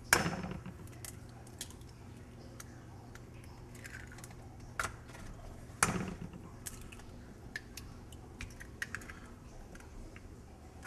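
Eggs being cracked open, two sharp knocks about six seconds apart, with light clicks and taps of shell between as the whites are separated from the yolks.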